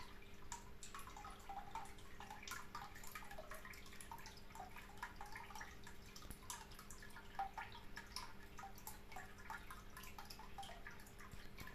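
Faint water trickling and dripping in a rapid, irregular patter of small plinks, over a steady low hum.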